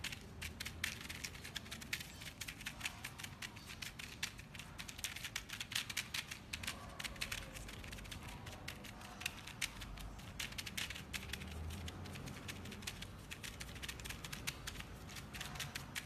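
Dense, irregular clicking and crackling, many sharp little clicks a second.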